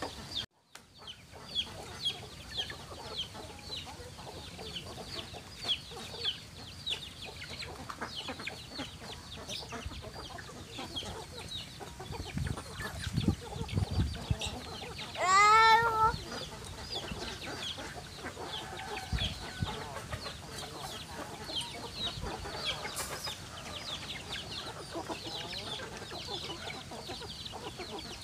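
A flock of chickens feeding: chicks peeping almost without pause in short, high chirps, hens clucking, and one loud chicken call about fifteen seconds in.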